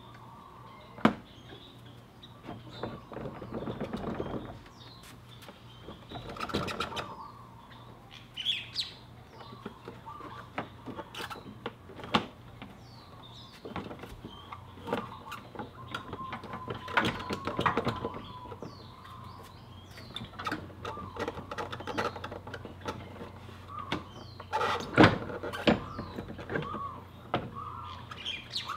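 Scattered clicks, knocks and rustling as the rear wheel of a Yamaha Zuma 125 scooter is worked loose and slid off its axle by hand. Small birds chirp in the background.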